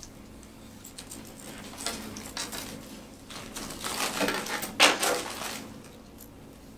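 Clear plastic bag of metallic gift bows crinkling and rustling as hands reach in and handle the bows, in irregular bursts from about two seconds in, loudest a little before five seconds.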